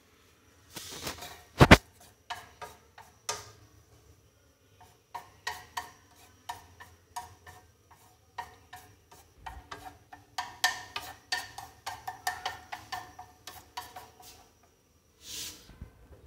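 A cooking utensil tapping and scraping against a frying pan in scattered clatters that become rapid, with one loud knock about two seconds in.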